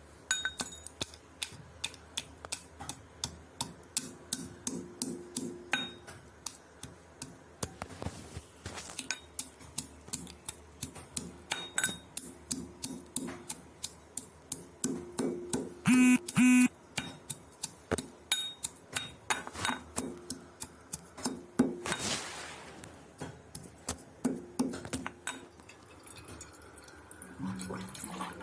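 Metal kitchen utensils knocking and clinking in a steady rhythm of about two strikes a second, some strikes ringing briefly. A louder ringing clang comes about sixteen seconds in, and a short rushing noise about six seconds later.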